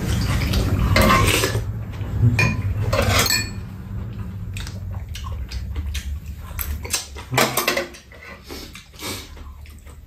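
Metal spoons and chopsticks clinking and scraping against ceramic bowls and a metal pan while eating, as a run of short irregular clicks. A low rumble sits under the first few seconds, after which the clinks are quieter.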